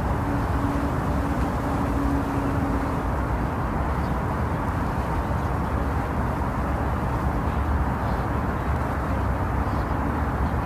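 Steady, deep hushing noise, the 'white noise' made to simulate the sound of the womb. A faint low hum sits under it for the first few seconds.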